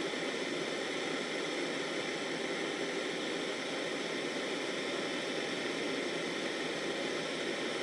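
Gas torch flame burning with a steady hiss while a copper bead on a mandrel is heated in it for torch-fired enamelling.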